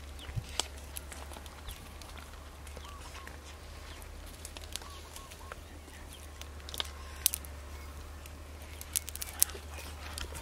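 Scattered sharp knocks and clicks, a few near the start and more in the second half, as a wooden-handled digging tool chops into hard, dry soil, over a steady low hum.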